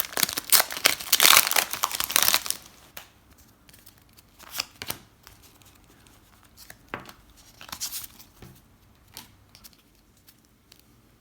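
Foil wrapper of a Pokémon trading card booster pack being torn open and crinkled, a dense crackling for the first couple of seconds, then a few short crinkles and clicks as the wrapper and cards are handled.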